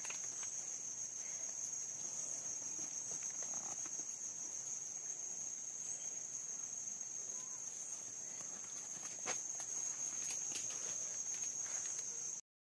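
Steady high-pitched insect chorus, a continuous trill of crickets, with a few faint clicks; it cuts off suddenly near the end.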